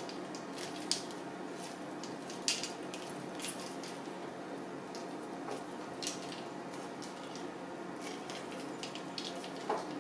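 Kitchen knife cutting grooves into a peeled pineapple to take out the eyes, with a few sharp, irregular clicks of the blade and fruit against a plastic cutting board over steady background noise.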